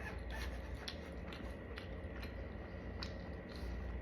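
A person chewing a mouthful of loaded tater tot dipped in sauce, with scattered small wet clicks and crunches over a steady low hum.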